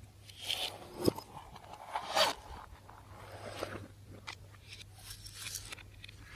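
Slime being mixed and squished by hand: irregular sticky scraping and crackling swells, with a sharp click about a second in.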